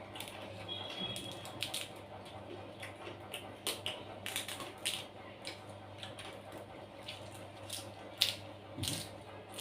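Crunchy food being chewed: irregular crisp crunches and crackles over a steady low hum.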